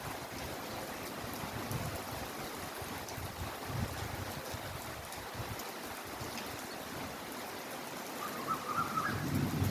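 Heavy rain falling steadily, an even hiss with uneven low swells; a louder low rumble builds near the end.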